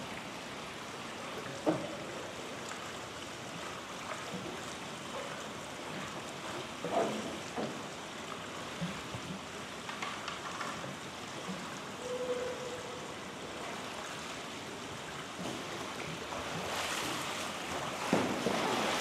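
Water lapping and splashing around a canoe-sport boat being paddled, with a few scattered knocks, and a louder rushing splash over the last couple of seconds.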